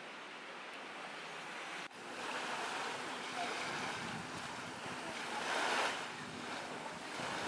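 Sea waves washing onto the beach, with wind on the microphone. The sound starts abruptly about two seconds in, after a faint steady hiss, and swells once a little before the end.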